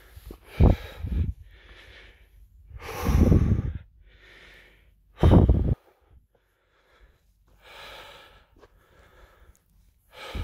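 A person breathing heavily close to the microphone: a run of loud breaths and puffs, the biggest about three and five seconds in, then softer breaths.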